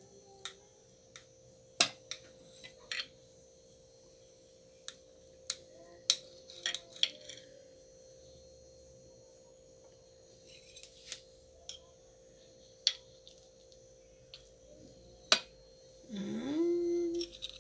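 Metal cutlery clinking and scraping against a ceramic plate as a pudim is cut and a slice is lifted out: a scattering of separate sharp clinks. Near the end, a short tone that rises and then holds.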